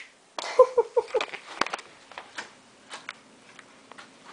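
Small terrier whimpering, a quick run of four short cries about half a second in, followed by scattered clicks and rustles. The dog is crying to be let outside.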